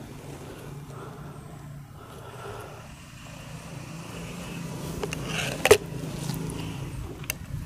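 Diana AR8 N-TEC break-barrel gas-ram air rifle being cocked and loaded: faint handling noise, then a sharp click about six seconds in as the barrel is closed, and a lighter click a moment later. A steady low hum runs underneath.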